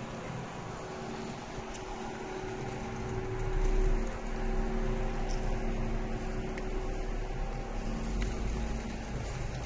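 Steady mechanical hum with a few held tones, a brief louder moment about two seconds in, and a deep rumble that joins from about three and a half seconds in.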